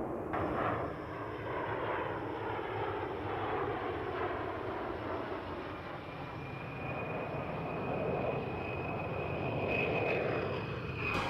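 Jet aircraft engines running with a dense, steady rushing noise. A high whine comes in about halfway through and grows stronger near the end.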